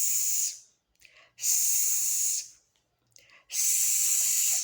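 A woman's voice making the long 'sss' sound of the letter S, repeated three times. Each hiss lasts about a second, with short gaps between.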